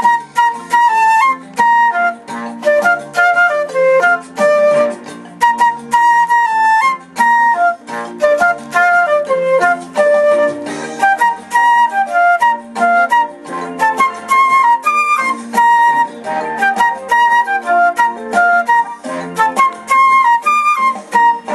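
Flute music: a lively melody of quick, short notes played over an accompaniment with a sharp, regular plucked or percussive pulse.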